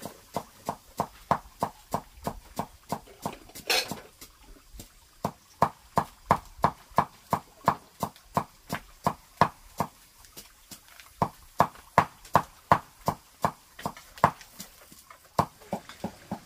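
Steady rhythmic knocking of hard strikes, about three a second, with a brief hiss about four seconds in and a short pause about eleven seconds in.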